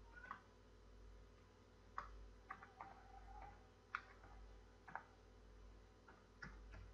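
Faint computer keyboard keystrokes: single sharp key clicks at irregular spacing, about nine of them, over a faint steady electrical hum.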